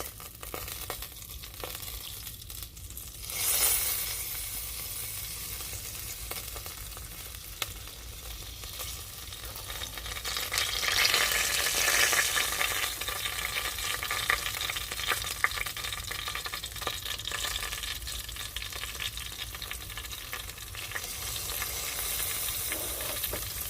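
Hot air-fried pork ribs sizzling and crackling as barbecue sauce is brushed onto them, louder for a few seconds about ten seconds in.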